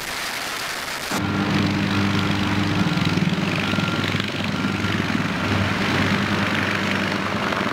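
Wind and rotor noise inside a helicopter's open cabin door, which changes abruptly about a second in to two UH-1Y Venom helicopters flying low, their rotors and turbine engines making a steady drone.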